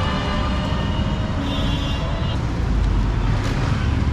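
Busy street traffic: motor vehicle engines running with a steady low rumble, and brief high tones over it.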